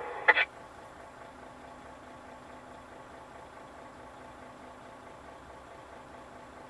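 Truck engine idling, a low steady hum heard from inside the cab. A brief burst of CB radio chatter cuts off about half a second in.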